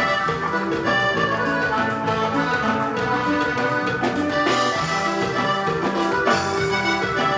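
Norteño band playing live without vocals: button accordion carrying a busy melody over bajo sexto and drum kit, at a steady dance beat.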